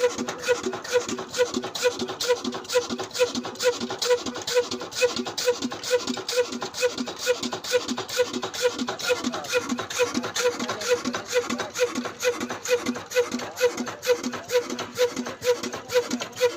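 Old black Ruston-type single-cylinder diesel engine running steadily, its exhaust beating at an even pace of about three beats a second.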